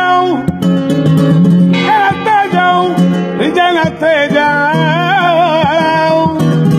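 Flamenco singing: a man's voice in long, wavering, ornamented lines over his own strummed acoustic guitar. The voice comes in about two seconds in, after a short guitar passage, and closes on a long held note.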